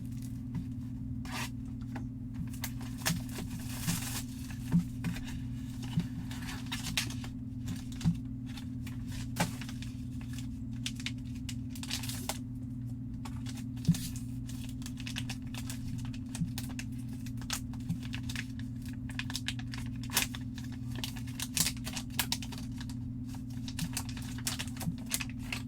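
Packaging of a trading-card box being torn open and crinkled by hand, with scattered clicks and scrapes of handling, over a steady low hum.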